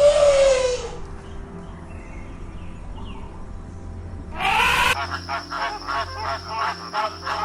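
Animal calls: a loud harsh call that falls in pitch, a second loud call about four and a half seconds in, then a run of short repeated calls about three a second.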